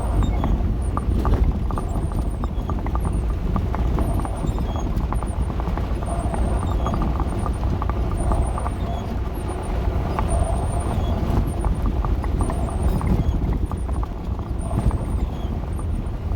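Dodge A108 van driving slowly over rough, muddy ground: a steady low rumble with constant rattling and clunking. A faint high chirp repeats about once a second.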